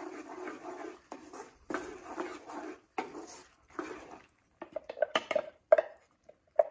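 Wooden spatula stirring a thick paste in a stone-coated nonstick pan, a scraping stroke about once a second. From about four and a half seconds in come a run of short, sharp knocks as the spoon taps and scrapes paste out of a steel mixer-grinder jar over the pan.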